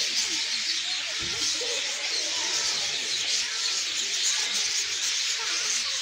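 Outdoor ambience: a steady high hiss with faint, indistinct voices underneath.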